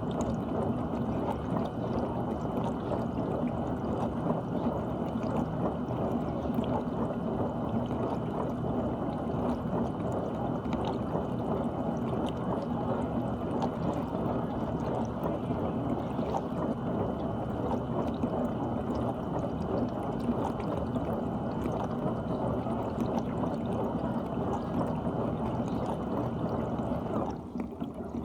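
GE dishwasher running mid-cycle: a steady rush of water sprayed around the tub, with a faint high whine over it. The sound drops away near the end.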